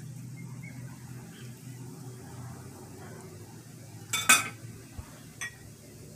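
A kitchen knife clinks against a plate about four seconds in, with a brief ringing, then taps again more lightly a second later, over a steady low hum.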